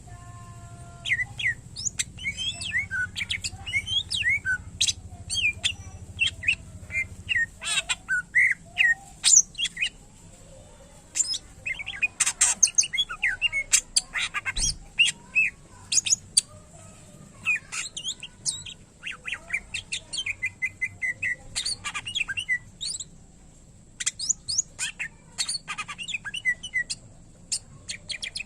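Cucak ijo (leafbird) singing energetically in a fast, unbroken run of varied chirps, whistles and sharp notes, its song filled with phrases copied from other birds. The song breaks off briefly about ten seconds in and again near twenty-three seconds.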